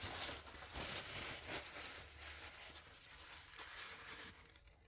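Paper towel being handled, with soft rustling and crinkling, strongest in the first two seconds, then fading.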